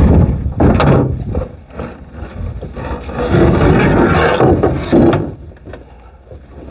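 Trailer loading ramps being pulled out and set in place, scraping and rubbing against the trailer with a few sharp knocks.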